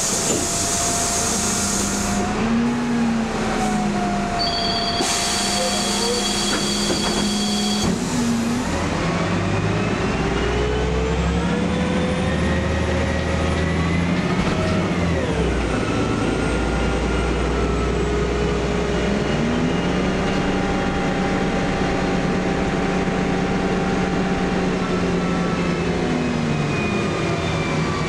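Karosa B961E articulated city bus heard from inside the passenger compartment while driving: a hiss of compressed air at the start and another, with a steady high tone, a few seconds later. Then the engine and drivetrain whine rises in pitch as the bus accelerates, drops about halfway through, and settles into a steady drone.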